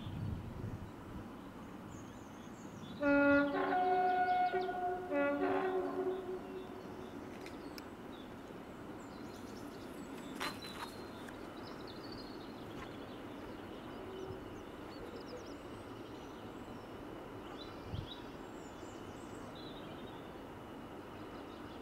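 Diesel locomotive's two-tone horn sounded twice, a longer blast about three seconds in and a shorter one about five seconds in. The faint, steady sound of the locomotive approaching follows.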